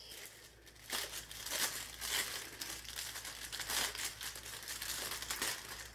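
Clear plastic packaging and small sealed plastic packets of rhinestones crinkling as they are handled, in a run of irregular rustles starting about a second in.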